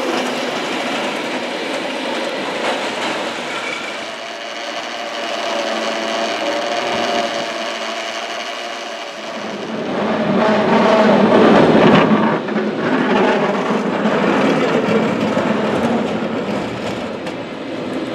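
San Francisco cable car line: steady whirring and clatter of the moving haul cable running in the slot beneath the street, with rail noise. It grows louder about ten seconds in.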